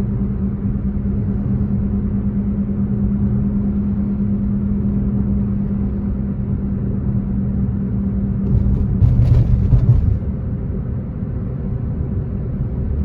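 Suzuki Wagon R (MH34S) with its 660 cc three-cylinder engine, heard from inside the cabin while accelerating: engine and road rumble under a steady low drone, the 'doo-doo-doo' noise that the owner suspects comes from the suspension at nearly 160,000 km. About nine seconds in the rumble briefly grows louder with a few light clicks, and the drone then falls away.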